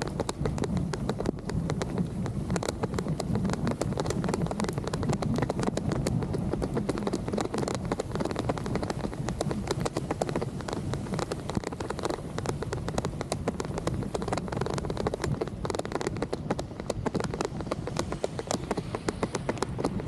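Wind and rain noise on a bicycle-mounted camera while riding on a wet road: a steady low rumble dotted with many small ticks.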